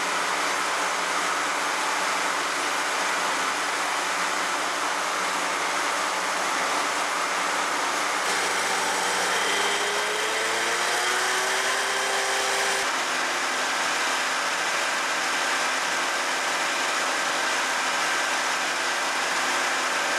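Shopsmith Mark V running steadily with a loud whirring hum. About nine seconds in, its speed dial is turned and a whine rises in pitch for a few seconds, then the sound changes abruptly near the thirteen-second mark and runs steady again.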